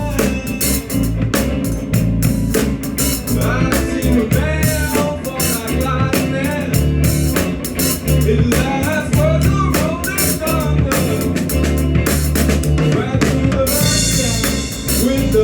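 Rock band music: a drum kit keeps a steady beat under bass and electric guitar lines, with a bright cymbal wash near the end.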